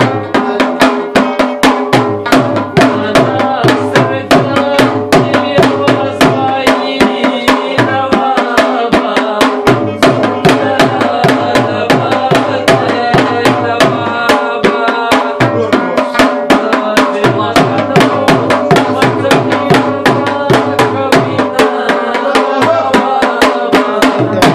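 Live Pashto folk music: a pair of hand drums, a Pashto tabla set, struck by hand in a fast, steady rhythm, with a plucked rubab carrying the melody.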